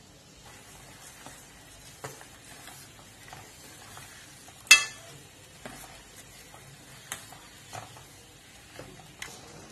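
Steel ladle stirring and pressing jaggery lumps in a little water in a stainless steel pan to dissolve them, with about six sharp clinks of the ladle against the pan, the loudest a little before the middle, over a faint steady hiss.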